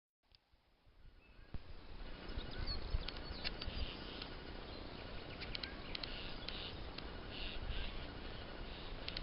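Spring woodland ambience: several small birds chirping and singing in short phrases over a steady low rumble. The sound drops out briefly at the start and fades back in over about two seconds.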